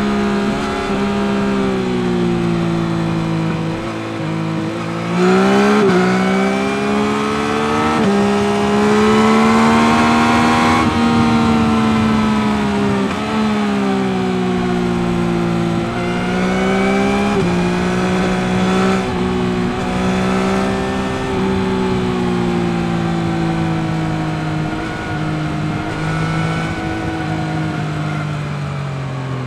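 2021 Yamaha MT-09 SP's 890 cc three-cylinder CP3 engine through its stock exhaust, ridden under way, its pitch rising and falling with the throttle. The pitch steps suddenly several times, at quick gear changes.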